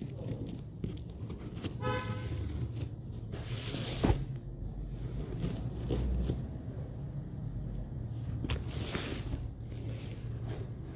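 Scissors cutting through the black plastic wrap and packing tape of a cardboard parcel: two longer swishing, tearing cuts about four and nine seconds in, and a sharp snip just after four seconds. A steady low rumble runs underneath, and a brief horn-like toot sounds about two seconds in.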